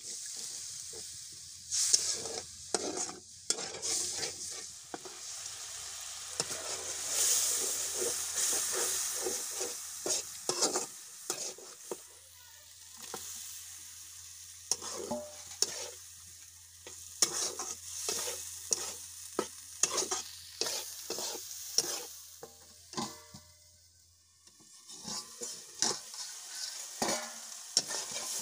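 A metal spatula stirring and scraping in a metal wok, in quick runs of sharp scrapes and taps, while curry masala fries and sizzles in oil.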